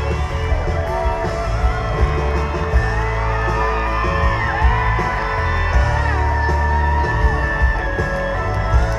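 Live country band playing loud amplified music through a concert PA, heard from the audience, with a heavy steady bass and gliding melodic lines over it.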